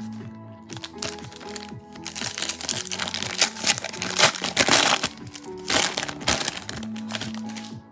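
Foil wrapper on a stack of trading cards being torn open and crinkled by hand, a crackling that builds from about a second in, peaks in the middle and stops near the end, over steady background music.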